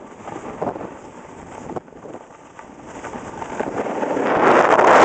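Wind noise on the microphone of a camera carried while riding down a ski slope, with snow hissing and scraping under the rider. The rush grows steadily louder over the last two seconds.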